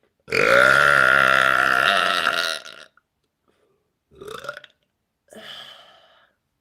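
One long, loud, deep belch lasting about two and a half seconds, its pitch wavering, followed by two short, quieter sounds about four and five seconds in.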